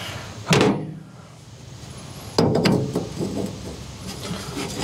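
Metal clunks and clatter as a removed fan pulley and hand tools are set down on the steel ledge of the compressor enclosure. Two loud knocks come about half a second and two and a half seconds in, with lighter rattling after the second and another knock near the end.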